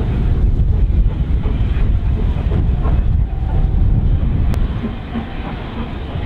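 Two GWR 4-6-0 steam locomotives, a Hall and a Castle, working a train past, heard as a heavy, continuous rumble with strong wind buffeting on the microphone.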